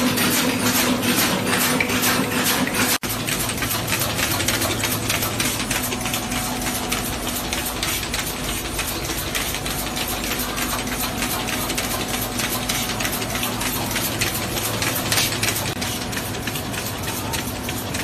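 Rotary compression-moulding cap machine running at production speed: a steady mechanical hum with fast, even clicking, and moulded plastic caps clattering off the conveyor. The sound drops out for an instant about three seconds in, then carries on steadily.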